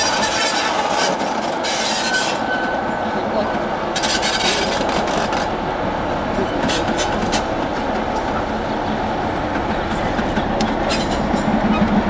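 Train of coaches running over curved track: a steady rumble of wheels on rail with bursts of clicking over the rail joints and grinding where the wheels rub on the curve. A low hum grows louder near the end.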